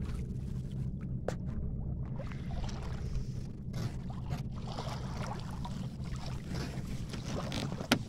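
Water lapping and splashing against the hull of a sailing canoe under way, over a steady rumble of wind on the microphone, with a sharp knock near the end.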